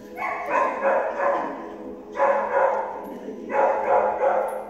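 Dogs barking in three bouts of about a second and a half each.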